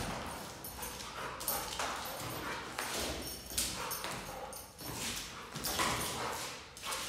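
A pit bull chasing and leaping at a flirt pole lure on a concrete floor: irregular scuffs and thuds of its paws and claws, coming in bursts about a second apart, along with the dog's own vocal sounds.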